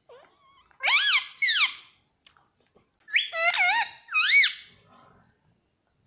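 Indian ringneck parrot vocalizing: two bursts of high-pitched notes that rise and fall in pitch, the first about a second in and the second about three seconds in.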